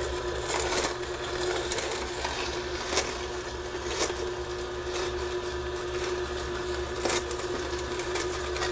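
Breville Big Squeeze masticating slow juicer running with a steady motor hum as its auger crushes celery stalks, with a few sharp cracks of the celery breaking a second or more apart.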